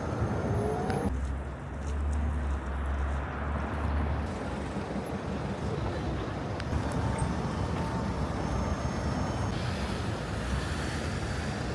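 Street traffic noise with vehicles passing, including a low engine rumble from about one to four seconds in, and faint voices of passers-by.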